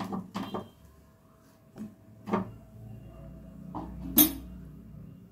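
Silicone spatula working a rolled crepe in a nonstick kadai: a quick run of soft knocks against the pan, a single knock about two seconds later, then a sharp clink near the end, the loudest sound.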